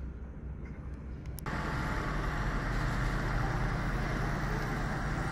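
Steady low machinery rumble of a patrol ship at the quayside. About a second and a half in it turns abruptly louder and hissier, with a faint steady whine over it.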